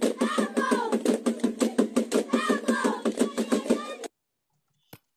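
A group of children playing a fast, steady rhythm by striking sticks and found objects, with voices calling over the beat. The music cuts off suddenly about four seconds in, followed by a single click.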